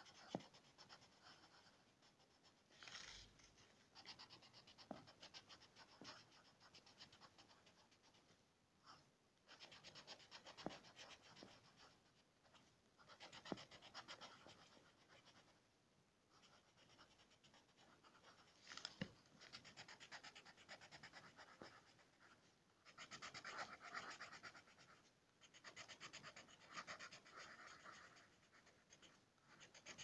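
Coloured pencil shading on paper: faint, rapid back-and-forth scratching in stretches a few seconds long with short pauses between, and a few sharp ticks.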